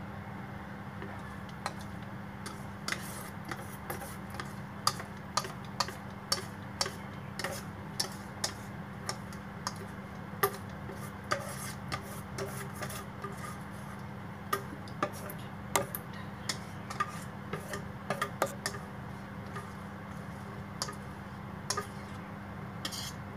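A utensil stirring thick chocolate cake batter in a bowl, knocking and scraping against the bowl in irregular light clicks, a few a second, over a steady low hum.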